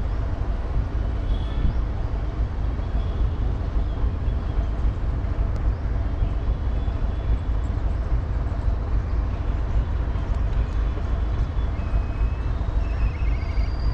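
Goods train hauled by a WDG4 diesel locomotive running past at speed: a steady, heavy rumble.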